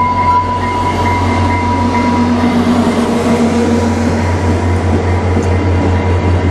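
VIA Rail F40PH diesel locomotive and its passenger cars rolling slowly past: a steady low rumble from the engine and wheels, with a steady whine that fades over the first couple of seconds as the locomotive goes by, then a faint regular beat of wheels as the cars pass.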